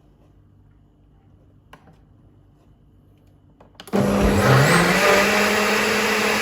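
Ninja Foodi Blender & Soup Maker blending soup on high: the motor starts suddenly about four seconds in, its pitch rising as it spins up, then runs loud and steady.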